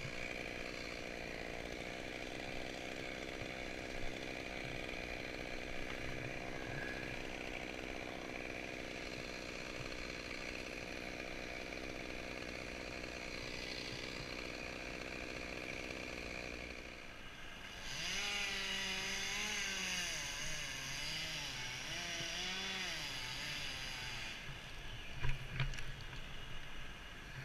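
Two-stroke chainsaw running steadily at idle, then throttled up about two-thirds of the way in and cutting through the trunk for about six seconds, its pitch wavering as the wood loads it. A few sharp knocks follow near the end.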